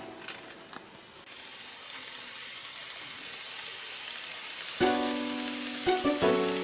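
A steady high hiss, then background music with sustained keyboard-like notes comes in about five seconds in.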